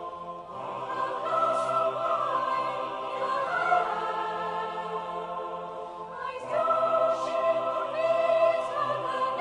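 Choral music: a choir holding long chords that swell louder about half a second in and again about six and a half seconds in.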